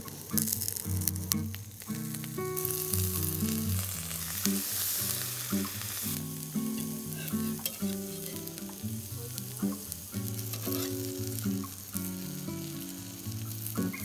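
Zucchini and fish balls sizzling on hot griddle plates over a fire pit, the sizzle strongest a few seconds in, with occasional clicks and scrapes of a spatula and fork on the metal. Soft background music with a low bass line runs underneath.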